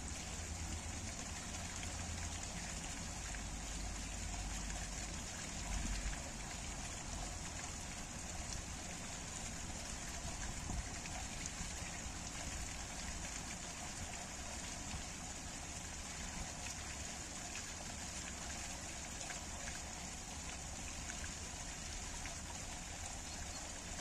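Spring water pouring steadily from a spout in a stone wall and splashing onto rocks below, an even, unbroken rush of falling and running water.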